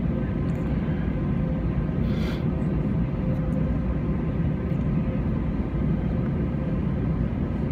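Steady low rumble of airliner jet engines, with a faint steady hum over it.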